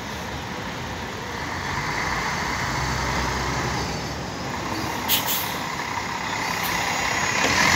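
Diesel engine of an articulated city bus running as it pulls slowly past, getting louder near the end, with a short sharp sound about five seconds in.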